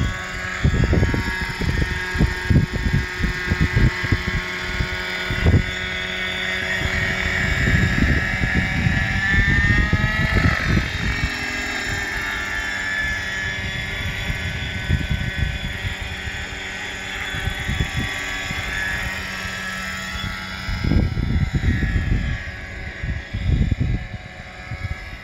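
JR Ergo .60 radio-controlled helicopter's .60-size glow two-stroke engine running in flight with its high whine, the pitch climbing to a peak about ten seconds in and then easing. Gusts of wind rumble on the microphone throughout.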